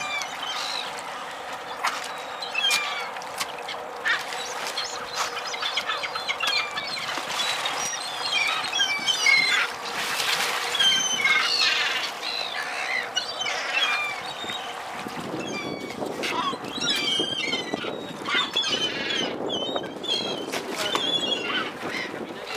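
Many gulls calling over and over in short, high cries, with sharp splashes and a steady low hum underneath. About two-thirds of the way through, a louder rushing, churning noise joins in.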